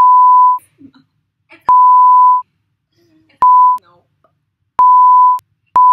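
Censor bleep: a steady tone near 1 kHz dubbed over the speech, sounding five times in short beeps of under a second each, with near silence between them.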